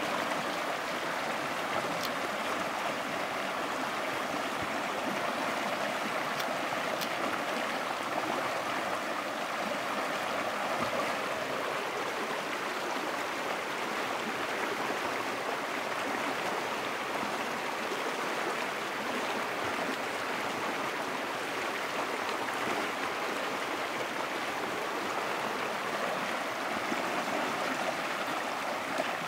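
Shallow mountain creek running over rocks: a steady, even rush of water.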